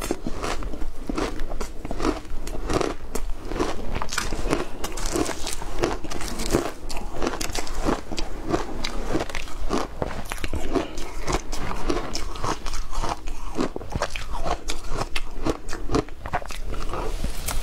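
A person biting and chewing hard shaved ice dusted with matcha and milk powder, picked up close by a clip-on mic: crisp crunches follow one another without a break.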